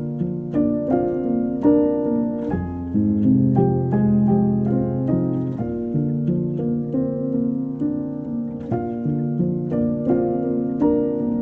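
Background music: solo piano playing a gentle melody over held chords, one note struck after another.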